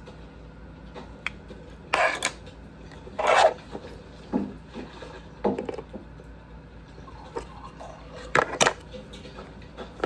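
Hard objects clinking and clacking about six times at irregular intervals, the loudest about three seconds in and two in quick succession near the end.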